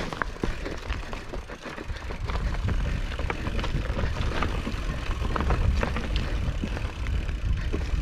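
Hardtail mountain bike rolling over a rocky trail: frequent sharp clicks and clatters of the bike over the rocks, over a steady low rumble.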